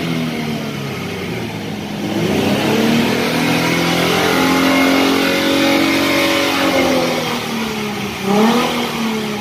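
A car engine running, its pitch rising slowly over a few seconds and then falling back, like a gentle rev.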